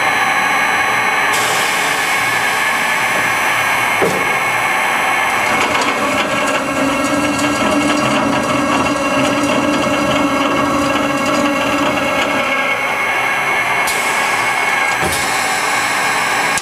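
Scotchman CPL 315 HFA automatic cold saw running, its 180-tooth black oxide blade turning at about 18 to 20 RPM and cutting 9/16-inch threaded rod in a test cut. A steady mechanical whine of several tones, with a short knock about four seconds in and another about fifteen seconds in.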